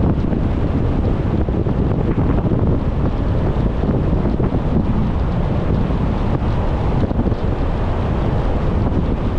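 Steady low rumble of wind and road noise from a car driving along.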